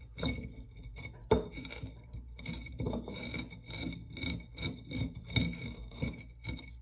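An oiled candle being rolled back and forth over a ceramic plate through a dried herb mix: irregular scraping and rubbing with light knocks of the candle against the plate, one sharper knock about a second and a half in.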